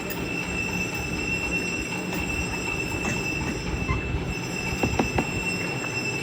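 Steady rumbling background noise with a thin constant high whine, and a few soft eating and mouth clicks around five seconds in, from a person eating rice and boiled egg by hand.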